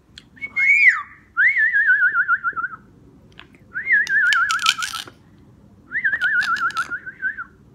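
Whistling: four phrases of a warbling tone, each rising at the start and then wobbling quickly as it slides slowly down. Sharp clicks or smacks sound over the third and fourth phrases.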